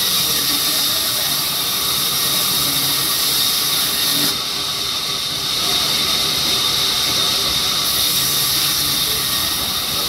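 Large vertical band saw cutting through a mahogany log: a steady, loud hiss of the blade in the wood with a thin high whine in it. The top of the hiss eases slightly about four seconds in and comes back near eight seconds.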